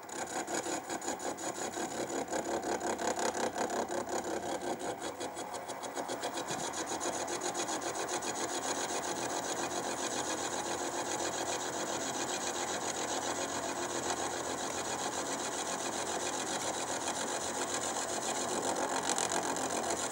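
End mill on a mini milling machine taking a light facing cut across the base of a brass bearing block. The spindle runs with a rapid, even pulsing as the cutter teeth bite the brass, starting abruptly and carrying on steadily.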